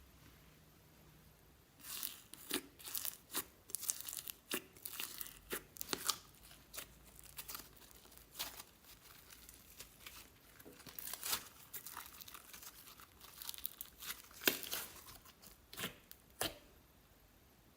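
Slime being squished and stretched by hand, giving irregular clusters of crackling, popping sounds from about two seconds in until shortly before the end.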